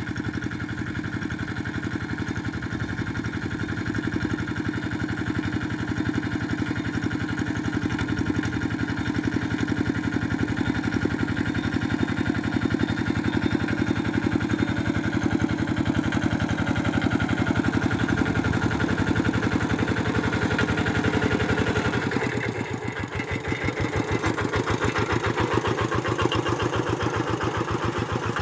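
Tractor engine running steadily while ploughing furrows; about 22 seconds in the note changes to a slower, evenly pulsing beat.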